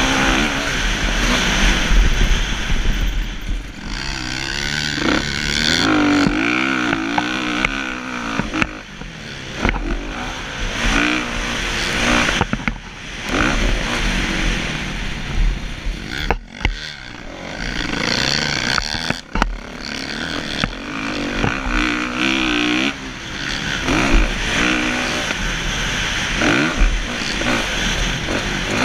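Kawasaki KX450F's single-cylinder four-stroke engine racing, heard from the rider's helmet. Its pitch rises and falls as the throttle is worked and gears are shifted, with brief sharp drops where the throttle is chopped.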